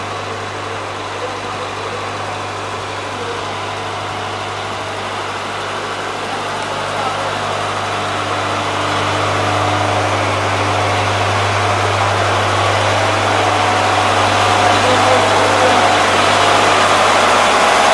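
Biogas-fuelled engine generator set running steadily with a low, even drone, getting louder over the second half.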